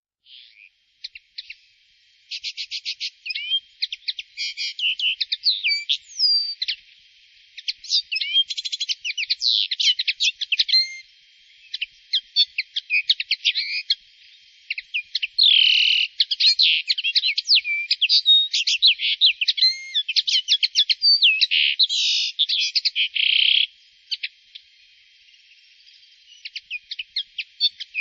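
A small songbird singing a long, varied song of rapid trills, chirps and whistled up-and-down glides, with a few buzzy notes. It starts with scattered chirps, runs almost without a break, eases off for a few seconds near the end and then picks up again.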